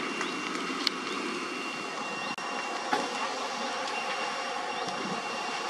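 Steady rushing din of a mobile-home fire being fought, with the running pumps of fire engines and the burning fire blended together. A couple of sharp pops stand out, about a second in and again about three seconds in.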